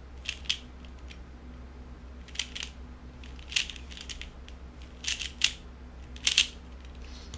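3x3 speedcube layers being turned by hand through an algorithm: short plastic clicks and scrapes, mostly in quick pairs, about ten turns in all.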